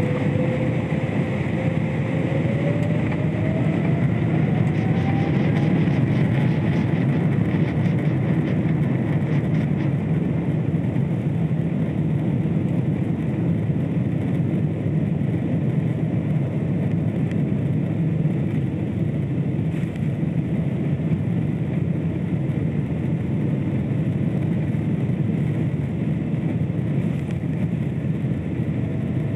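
Boeing 777-300ER's GE90 engines spooling up to takeoff thrust at the start of the takeoff roll, heard inside the cabin over the wing. An engine whine rises in pitch over the first several seconds, above a steady heavy rumble as the jet accelerates down the runway.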